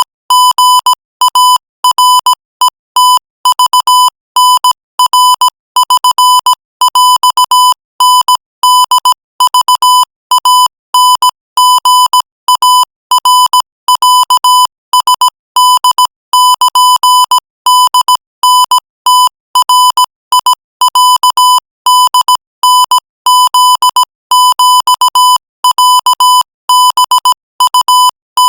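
Morse code at 20 words per minute: a steady-pitched beep around 1 kHz keyed on and off in rapid short dots and longer dashes, with brief gaps between characters and words.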